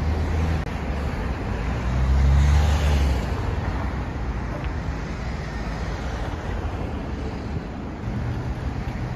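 Road traffic going by: a steady wash of tyre and engine noise, with one vehicle passing louder about two to three seconds in.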